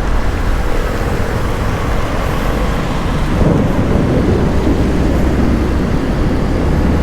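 Riding noise on a Benelli Panarea 125 scooter on a wet road: steady wind rumble on the microphone with the scooter's engine and tyres underneath.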